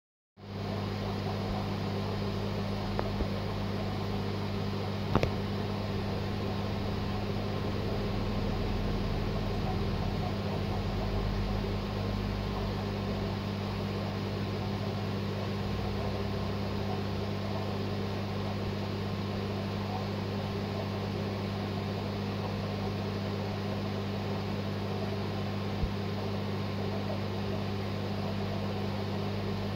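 Aquarium equipment running: a steady low hum with an even hiss, with a few brief clicks.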